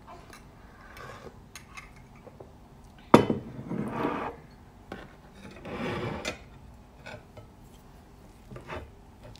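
A coffee mug is set down on the table with a sharp knock about three seconds in. A fork and spoon then scrape and clink on a ceramic plate of rice in two longer strokes, with a few small clicks near the end.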